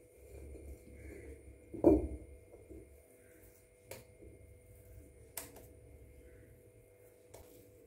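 Hand-turned stone grinder (aattukallu) working wet rice batter: a low rumble of the stone pestle turning in the stone mortar, with one heavy knock about two seconds in. A few light clicks follow.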